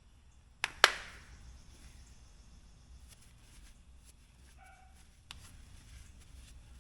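Two sharp knocks close together, the second the louder with a short ringing tail, like a hard tool or container set down on a hard surface; later faint handling clicks, a brief squeak and one more click.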